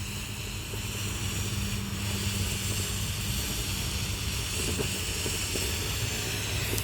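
Firework spraying sparks with a steady hiss that stops abruptly near the end.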